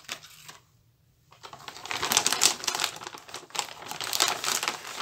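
Clear plastic packaging pouch crinkling as it is handled, starting about a second and a half in after a few light clicks.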